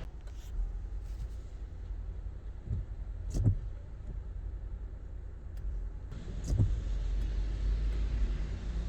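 Rain heard from inside a car cabin: a steady low rumble with scattered single taps of heavy drops on the roof and glass. A faint higher hiss of rain comes back about six seconds in.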